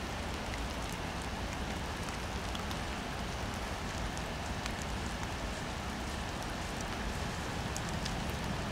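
Steady rain outdoors: an even hiss with scattered light ticks of drops.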